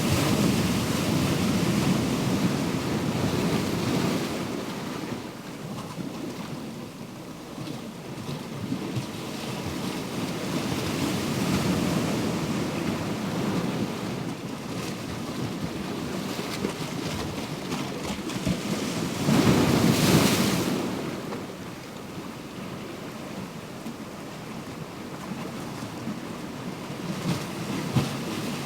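Ocean surf: waves washing in and out with a slow rise and fall, and one heavier wave breaking about two-thirds of the way through.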